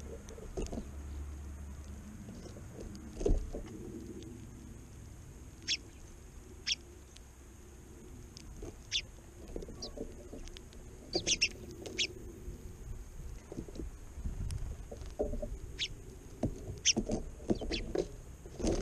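House sparrows chirping in short, scattered notes, with a few low bumps and knocks now and then.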